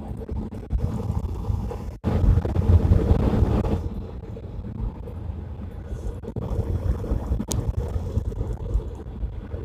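Low, steady rumble of road and engine noise inside a moving car, with wind buffeting the phone's microphone. The rumble briefly cuts out about two seconds in, then comes back louder for a couple of seconds.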